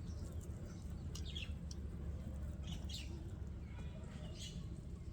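Birds chirping in three short bursts about a second and a half apart, over a steady low rumble.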